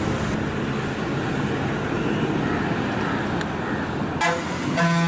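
Bus engine running with road noise as the bus turns slowly. Near the end a horn sounds: a brief blip, then a longer steady blast.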